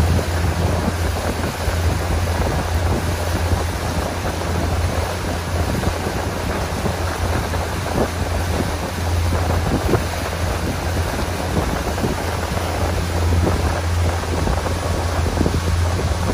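Motorboat under way: a steady low engine drone with wind buffeting the microphone and water rushing past the hull.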